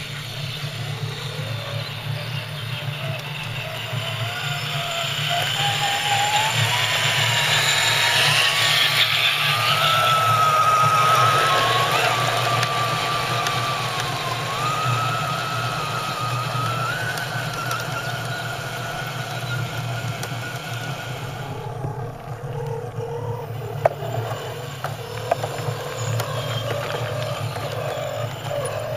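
Electric motor and gear whine of a small scale RC crawler truck, its pitch climbing and wavering with the throttle and growing louder toward the middle as it drives up close.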